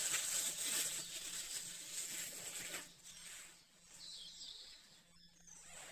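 Clear plastic film wrapping crinkling and rustling as it is handled and pulled off a heart-shaped tin gift box, busier for the first three seconds and then quieter.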